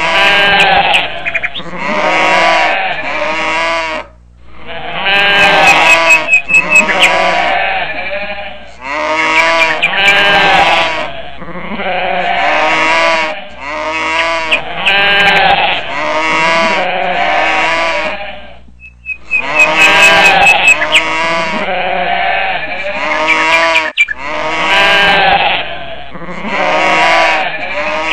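Sheep and goats bleating over and over in loud, wavering calls, grouped in stretches of about four to five seconds with short breaks, like a looped animal sound-effect track.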